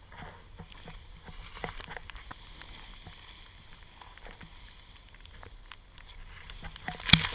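Skis hissing through deep powder snow, with wind noise and small knocks on the camera throughout, and one sharp thump near the end.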